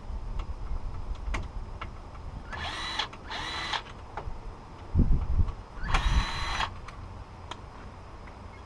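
Storm door handle and latch hardware being handled and fitted: scattered light clicks, three short squeaky tones near the middle, and a few low bumps.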